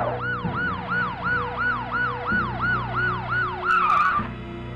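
Police car siren in a fast yelp, rising and falling about three times a second. Near the end it switches to a quicker, louder warble and then cuts off suddenly.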